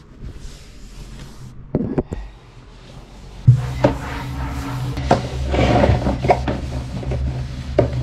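Knocks and scraping clatter from handling a wooden-handled cleaning tool and household things: two sharp knocks about two seconds in, then from about three and a half seconds a steady low hum under continued clattering and rubbing.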